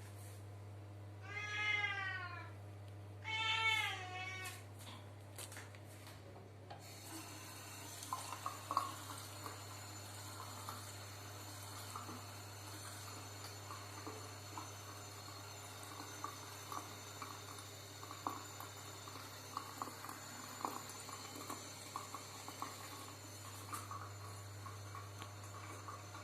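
A domestic cat meows twice, the second call shorter, each falling in pitch at the end. Then a tap starts running into the bathroom sink, a steady hiss with small splashes and clicks, over a low steady hum.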